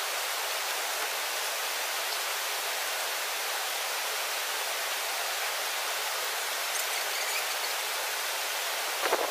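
Steady, even rush of a stream flowing through a rocky gorge, with a short knock right at the end.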